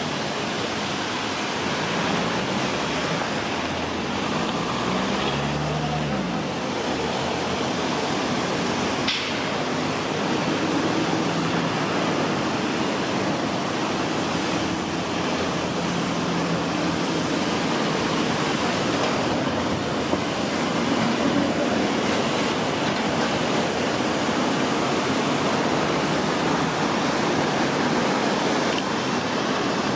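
Bucur LF tram running past through a turn under steady street traffic noise, with a faint low hum in the middle stretch and a single short click about nine seconds in.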